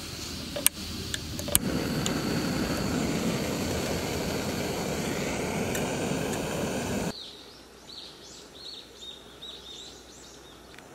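A canister camping stove's piezo igniter clicks a few times, then the gas burner lights and runs with a steady rushing noise. About seven seconds in the burner sound cuts off suddenly, leaving birds chirping.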